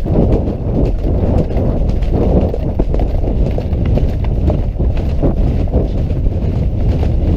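Hoofbeats of a ridden horse moving briskly along a dirt forest track, heard from the saddle, with a steady low wind rumble on the microphone.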